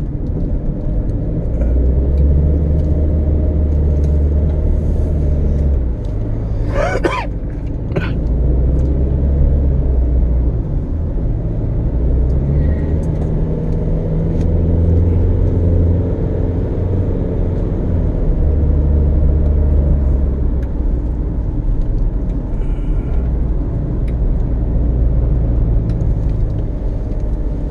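Car engine and road noise inside the cabin: a steady low rumble that swells and eases every few seconds. A brief sharp sound about seven seconds in, then a click a second later.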